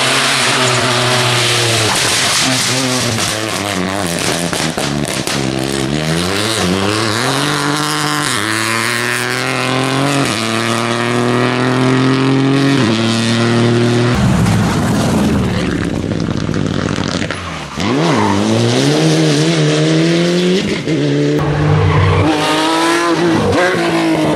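Rally cars at full throttle on a tarmac stage, one after another: engines revving up through the gears, the pitch climbing and dropping abruptly at each upshift, with a brief lift off the throttle and re-acceleration near the end.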